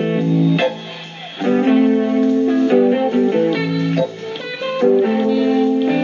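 Background music: a guitar-led instrumental track with plucked notes.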